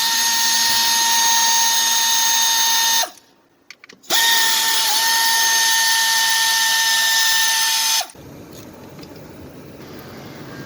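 Handheld power tool motor running at steady high speed in two runs of about four seconds each, with a one-second stop between them. Its pitch dips briefly partway through the second run.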